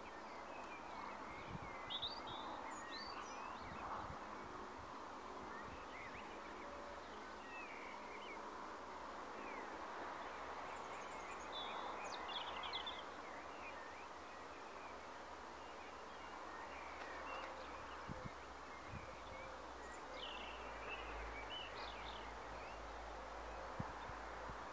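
Faint outdoor ambience: a steady background hiss with scattered short bird chirps and twitters coming in clusters every few seconds. A low rumble comes in near the end.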